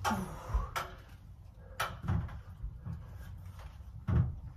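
Knocks and thuds of a metal antenna stand and its hotspot mount being lifted and bumped up into an attic: a few sharp knocks in the first two seconds, then heavier thuds, the loudest near the end.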